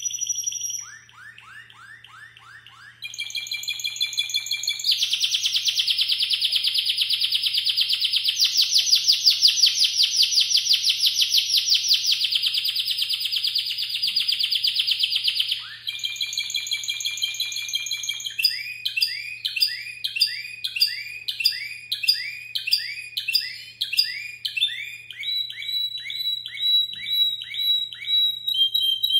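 Male Spanish Timbrado canary singing a long, continuous song of changing phrases: a fast rolling trill through the middle, then repeated swooping notes at about two a second, and steady repeated notes near the end.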